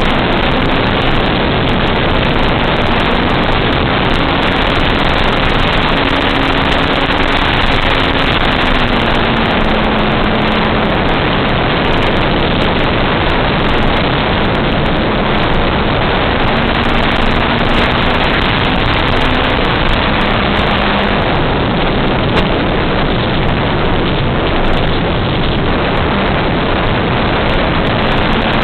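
Small propeller-driven RC airplane in flight heard from its onboard FPV camera: a loud, steady rush of motor, propeller and wind noise, with a faint low hum that shifts up and down in pitch as the throttle changes.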